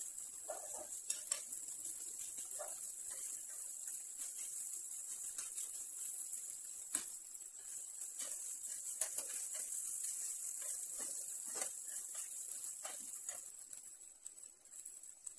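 Cooked rice sizzling in a frying pan while a metal spoon stirs it, scraping and clicking against the pan; the stirring stops near the end.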